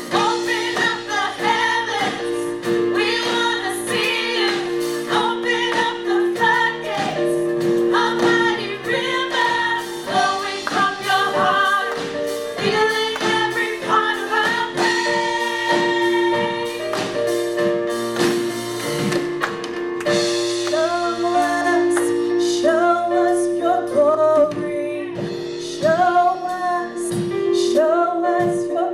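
Contemporary worship song: a woman sings the melody in held, gliding phrases over sustained instrumental chords.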